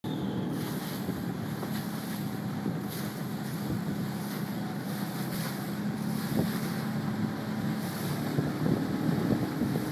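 Wind buffeting the microphone over rushing, choppy water, with a steady low motor hum underneath.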